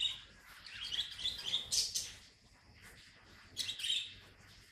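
Short, high-pitched chirping calls in three clusters: one at the start, a longer run through the first two seconds, and another near the end.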